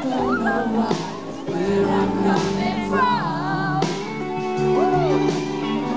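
Live band music with singing and acoustic guitar, heard from within the concert audience.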